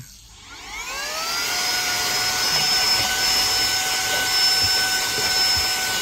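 Saker 3-in-1 cordless handheld vacuum cleaner with a brushless motor, switched on: its whine rises in pitch over the first second and a half, then runs steadily as a high whine over a rush of air.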